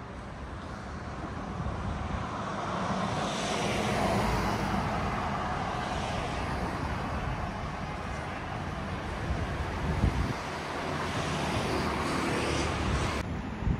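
Passing road traffic: a vehicle's noise swells to a peak about four seconds in and eases off, and another passes near the end.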